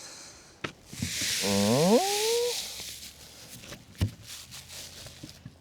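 Rustling of a roll of synthetic roofing underlayment being handled, with a short voice-like call rising sharply in pitch in the middle and a couple of knocks.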